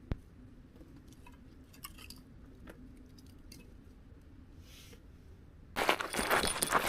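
A sharp click, then a few faint ticks over a low steady hum, then a sudden loud burst of close rustling and crinkling near the end.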